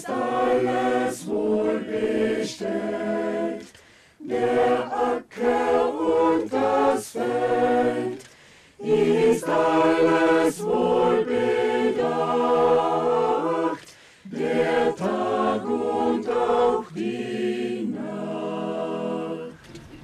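Mixed choir of men's and women's voices singing a cappella, in sustained phrases broken by short breaths.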